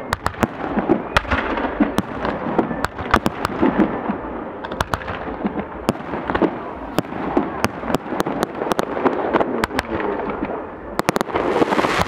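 Fireworks display going off: a steady run of irregular sharp bangs and crackling reports over a continuous rumbling haze, with a quicker cluster of bangs near the end.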